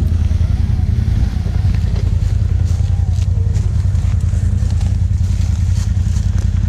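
Polaris Sportsman 1000 ATV's V-twin engine idling steadily. A few brief scratchy rustles of glove wrist straps being fastened come in the middle and near the end.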